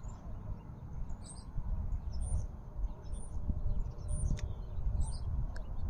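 Small birds chirping, short high chirps about once a second, over a steady low rumble.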